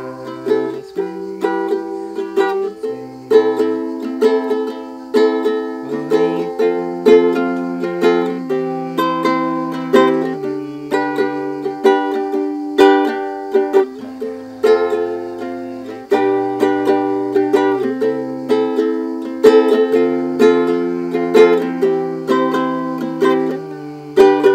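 Ukulele strummed in a steady rhythm, working through a sequence of chords that changes every second or two.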